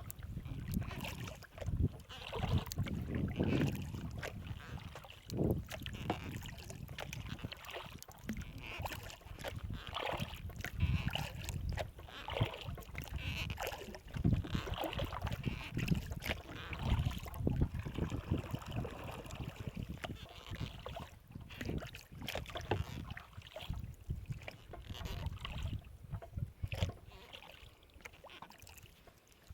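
Kayak paddling: the paddle blades dipping and pulling through the water with splashes and drips, in an irregular run of strokes that quiets near the end.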